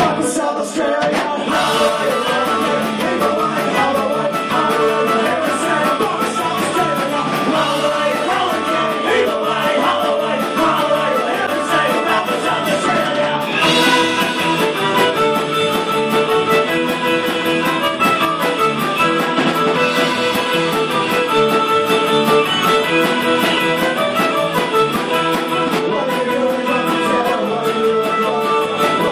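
Live rock band playing loud through the PA: electric guitars, electric bass and drum kit. The music shifts about fourteen seconds in into a section with long held notes.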